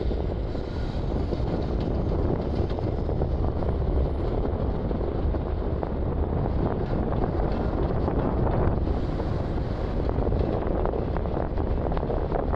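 Steady low rumbling noise with gusty buffeting, mostly wind on the microphone.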